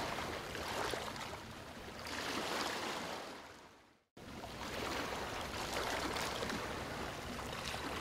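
Rushing water, a steady hiss that swells and ebbs. It fades out and stops briefly about four seconds in, then comes back.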